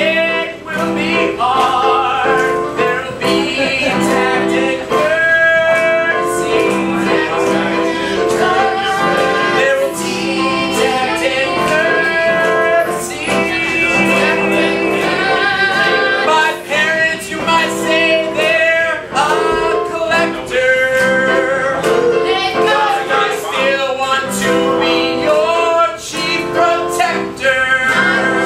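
Live song: men and women singing together, at times in choir-like harmony, over steady instrumental accompaniment.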